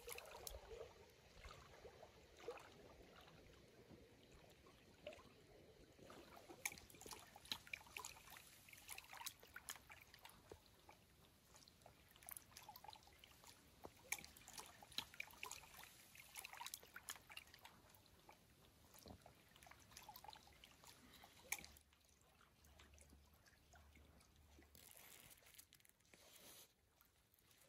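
Faint water lapping and trickling against a rocky lakeshore, with many small scattered ticks and drips. A brief soft rustle near the end.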